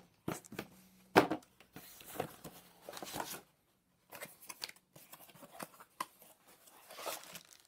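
Plastic packaging rustling and cardboard being handled as parts are lifted out of a box, with scattered clicks and knocks. A sharp knock about a second in is the loudest.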